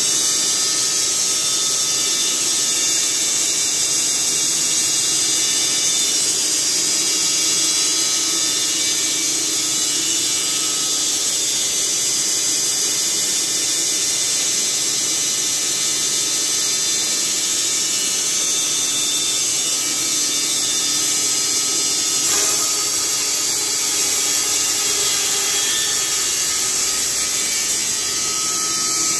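Carpathian SMFA 100 horizontal band sawmill running steadily, its band blade sawing through a log with a continuous high-pitched whine.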